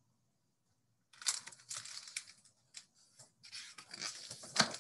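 Paper rustling and flapping as the pages of a large picture book are turned and handled, starting about a second in.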